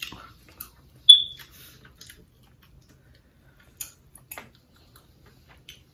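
Close-up eating sounds from someone eating a seafood boil with her fingers: scattered short mouth clicks and smacks while handling the food, with one sharper click and brief ring about a second in.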